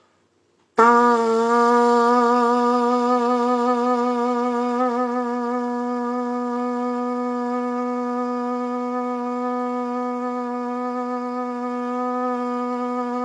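Trumpet holding one low note for about thirteen seconds without a break, a long-tone endurance exercise played as long as the breath allows; the pitch wavers slightly at the start, then stays steady.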